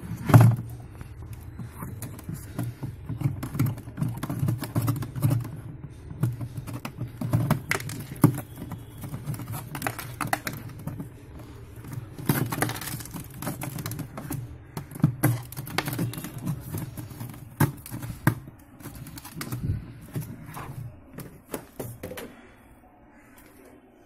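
Irregular clicks and knocks of plastic and ice as hands work inside an opened refrigerator freezer compartment, around its iced-up evaporator and fan, over a steady low hum that fades out near the end.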